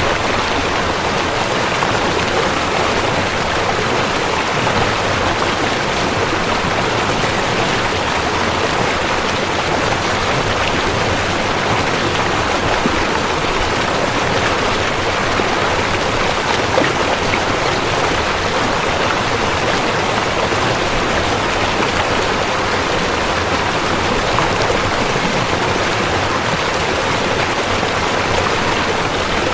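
River water flowing, a steady rushing with no pauses.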